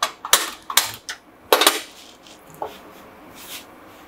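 Irregular sharp clicks and metallic clanks: a handheld spark gas lighter clicking at a gas stove burner, and an aluminium kadhai knocking against the stove as it is set on the burner. The loudest clank comes about a second and a half in.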